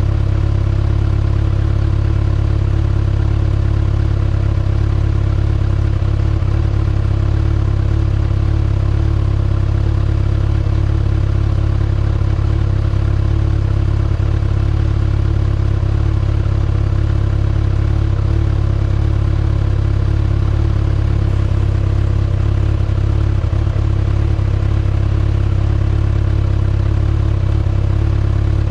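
2019 Kawasaki ZX-6R's inline-four engine running at a steady, unchanging speed through its stock exhaust.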